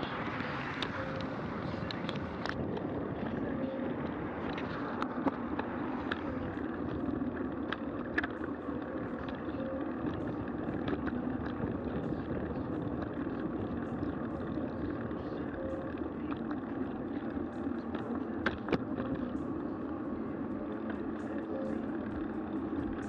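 Steady road and wind noise from a bicycle ride, with scattered sharp clicks and rattles.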